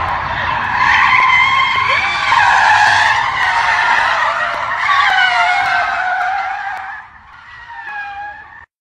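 Car tyres squealing as a sedan drifts in circles on asphalt. The squeal wavers up and down in pitch, fades about seven seconds in, and cuts off just before the end.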